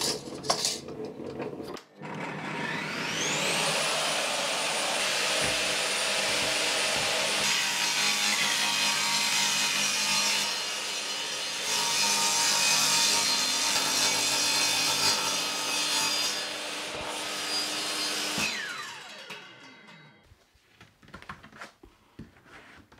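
Table saw switched on with a rising motor whine about two seconds in, then ripping through an OSB panel for some fifteen seconds under a steady high whine; near the end it is switched off and the whine falls away as the blade winds down.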